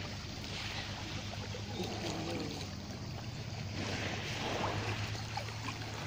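Small sea waves washing and trickling around shoreline rocks, swelling and fading, over a steady low hum.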